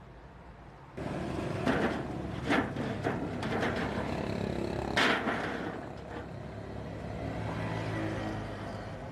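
Open-air street noise with vehicle engines running and passing, starting abruptly about a second in, with a few sharp clatters over it.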